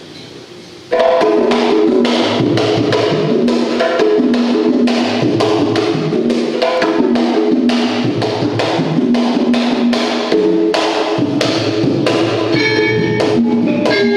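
Kendang jaipong drumming: a set of hand-played barrel drums in quick, sharp strokes over a gamelan ensemble whose metallophones sound steady ringing notes. The music starts suddenly about a second in.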